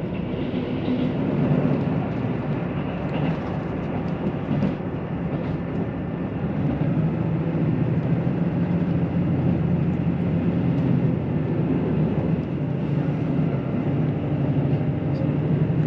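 KiHa 85 series diesel limited-express railcar running, heard from inside the passenger cabin: a steady low engine drone over the rumble of wheels on rail. The drone grows a little stronger about seven seconds in.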